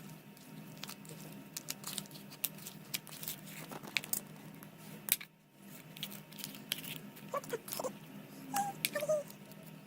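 Homemade slime being squished and kneaded by hand: an irregular run of small sticky clicks and pops, with a short lull a little past the middle.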